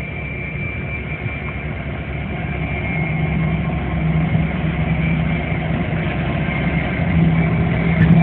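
Class 66 diesel locomotive's EMD two-stroke V12 engine running steadily as the locomotive passes slowly, running light with no train. The engine sound grows gradually louder as it draws nearer.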